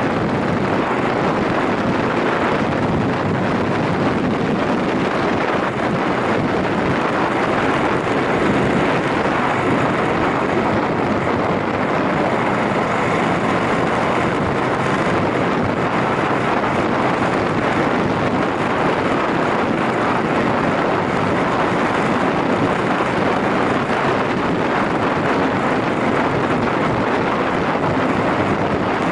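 Yamaha SRX400 motorcycle under way: a steady rush of wind over the microphone, with engine and road noise beneath it.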